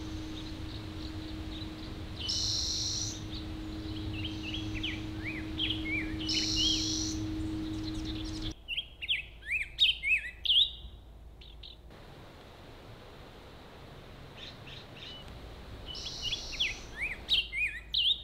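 Several songbirds singing and calling: many short rising and falling whistled notes, with a few higher buzzy notes now and then. A steady low hum runs underneath at first and cuts off suddenly about halfway through.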